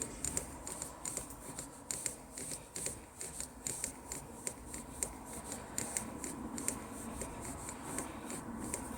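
Suzuki Jimny gearstick rattling: a run of quick, irregular clicks and ticks, several a second, over the low rumble of the running vehicle.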